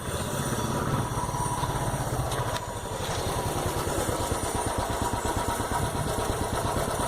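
Royal Enfield Bullet 350's single-cylinder engine running through an aftermarket Monster silencer, with a steady, even exhaust beat.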